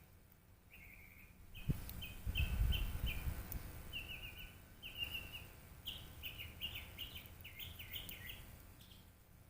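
Small songbirds chirping at a feeder, quick series of short, high chirps that repeat throughout. A sharp thump comes just under two seconds in, followed by a couple of seconds of low rumble.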